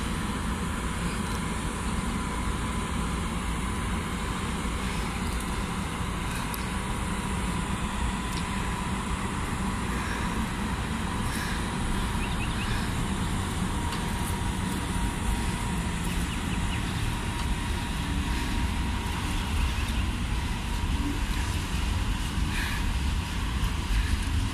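PKP Cargo ET22 electric freight locomotive and its train of open coal wagons passing at close range: a steady rumble of wheels on rail, with a thin steady whine above it and a few faint clicks.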